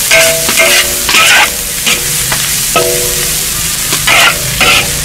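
Metal spatula scraping and tossing dried shrimp, diced pickled radish and green chilies around a large black wok, about two strokes a second. Each stroke makes the wok ring briefly over a steady sizzle.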